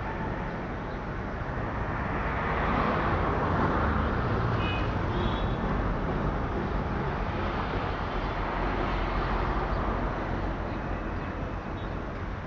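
Steady rumbling rush of a moving train, heard from inside the coach, with no clear rhythm.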